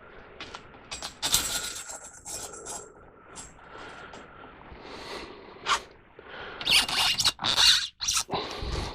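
A steel bandsaw blade being handled and worked onto the sawmill's wheels: irregular scrapes and rattles of metal on metal, loudest in a few bursts near the end.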